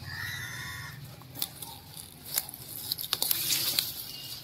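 A hen clucking in the first second, then crackling and rustling of turnip leaves with a few sharp snaps as a red turnip is pulled out of the soil by hand.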